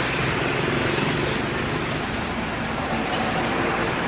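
Steady running-engine and road-like noise with a low hum.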